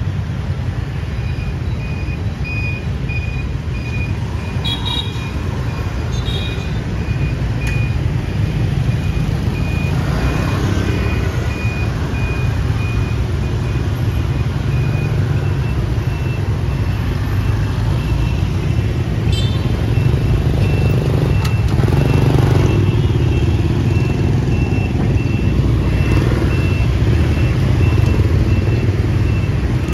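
Busy city street traffic: a steady rumble of passing motorbikes and cars, with a few louder vehicles going by. Through it runs a repeated high electronic beep that steps slightly higher in pitch about halfway through.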